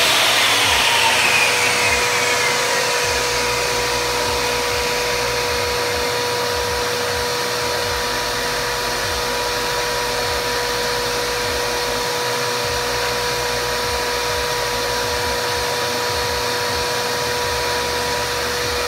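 Shop vacuum used for dust extraction on a table saw, running steadily with a constant whine. In the first few seconds a fainter whine falls in pitch as the saw blade spins down after a cut.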